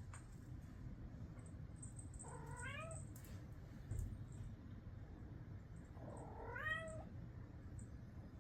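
Domestic cat meowing twice, each meow rising then falling in pitch, about four seconds apart, with a soft low thump between them.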